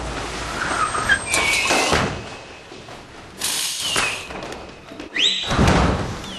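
Fireworks and firecrackers going off: a run of sharp bangs with short whistling glides between them, one rising whistle about five seconds in.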